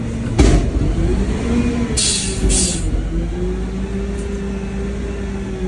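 Garbage truck engine running at raised revs, with a whine that rises and falls and then holds a steady pitch. A sharp knock comes just under half a second in, and two short hissing bursts about two seconds in.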